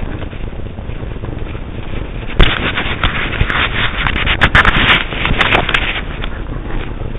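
Walking on a forest trail heard through a chest-clipped camera: steady footfall and handling rumble, broken from about two seconds in by a loud scraping, crackling rustle against the microphone that lasts about three and a half seconds.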